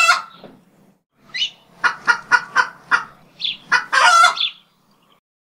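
Chicken clucking in a run of short, evenly spaced clucks, about three a second, with a longer, louder call near the end.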